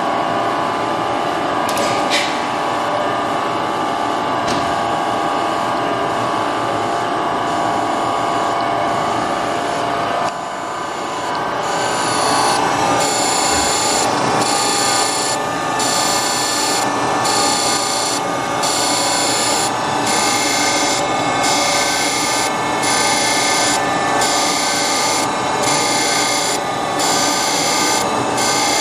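Brown & Sharpe 1236 Micromaster hydraulic surface grinder running, its wheel motor and hydraulics giving a steady hum. About ten seconds in, the grinding wheel cuts a steel block, and a sharp grinding hiss comes and goes about once a second as the hydraulic table strokes back and forth under the wheel.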